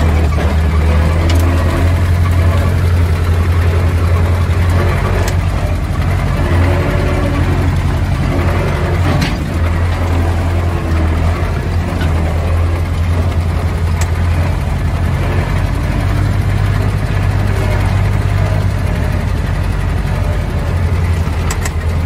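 Diesel engine of a plowing machine running steadily with a strong low hum, with a few short knocks and rattles now and then.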